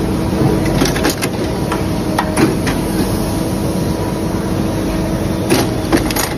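Automatic shoe toe-lasting machine running: a steady mechanical hum and rumble with scattered sharp clicks and clacks.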